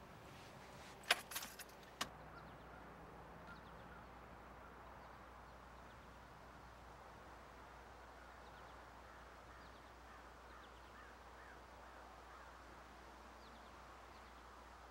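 A quick cluster of sharp clicks and knocks about a second in, then faint outdoor ambience with a few faint bird chirps.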